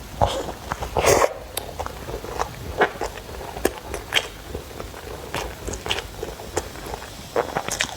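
Close-miked eating: irregular wet chewing and mouth smacks, with a louder cluster of bites about a second in.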